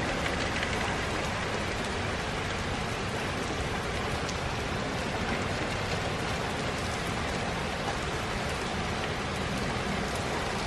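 Steady rain from a tropical storm rain band falling: an even hiss with faint scattered drop ticks.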